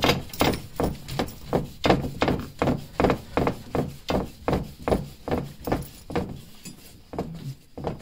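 Brass boiler pressure relief valve being screwed by hand onto its taped pipe fitting. There is a steady run of short scraping knocks, about two a second, one with each twist, growing weaker near the end.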